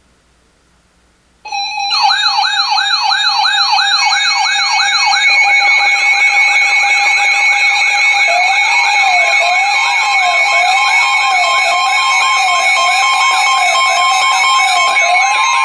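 Several electronic sirens sounding together, starting suddenly about a second and a half in after faint hiss. A fast yelp sweeps up and down several times a second over steady high tones. From about eight seconds in, a slower wail rises and falls about once a second.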